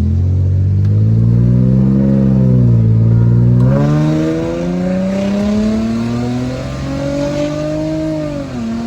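Infiniti G35's 3.5-litre V6 accelerating, its pitch climbing with a sudden change about four seconds in and a drop near the end, heard through an exhaust leaking at both worn-out flex pipes.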